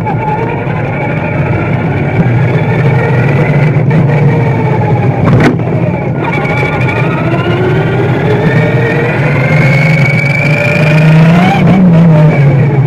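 Radio-controlled car driving on asphalt, heard from a camera on its own body: its motor whines, the pitch gliding up and down with speed, over a steady rumble of tyres and drivetrain. A single sharp knock comes about five seconds in, and near the end the whine climbs to its highest and then drops.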